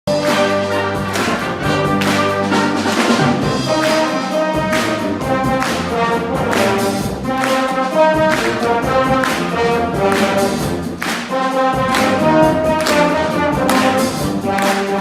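A school wind band playing loudly, brass leading over the ensemble, with sharp accents on a regular beat.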